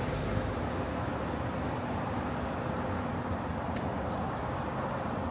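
Street traffic: a steady low rumble of vehicles on a city road, with a brief sharp click a little under four seconds in.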